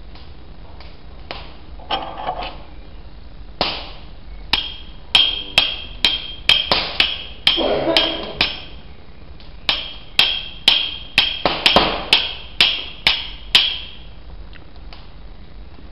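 Carbon-steel striker repeatedly struck against a flint to throw sparks: a run of sharp, ringing strikes at about two a second. There are a few lighter strikes first, then the strikes come quickly, pause briefly about halfway through, and resume.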